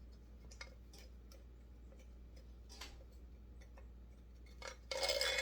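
Scattered light clicks and taps of small chainsaw parts and tools being handled, then a short louder scrape near the end.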